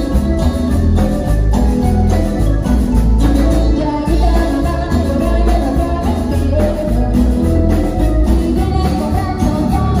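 Latin dance band music with a heavy, steady bass beat, keyboard melody and shaken percussion.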